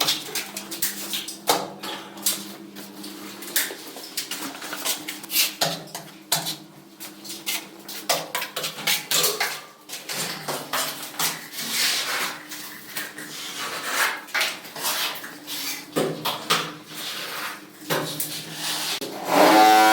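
Irregular clattering: many sharp clicks and knocks of hard objects being handled, over a faint steady hum, with a musical tone coming in at the very end.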